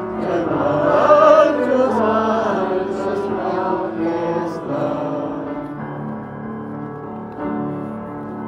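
Background music: a choir singing, giving way to steadier held chords about six seconds in.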